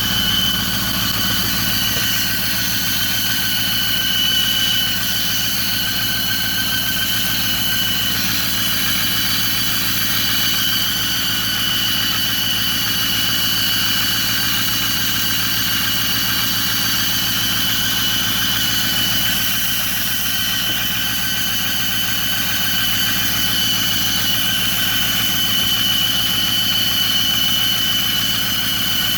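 Ford 6.4 L Power Stroke twin-turbo V8 diesel idling with a steady high-pitched squeal over the engine hum. The owner blames the squeal on leaking exhaust manifold gaskets.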